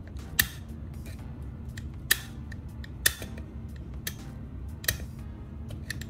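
Utility knife blade tip scraping a failed LED chip off an LED bulb's circuit board: short, sharp scratchy clicks about a second apart, the loudest about half a second, two and three seconds in.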